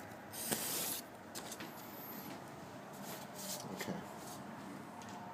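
Rubbing and rustling from a handheld phone being moved, with a short hiss about half a second in and scattered light clicks after it.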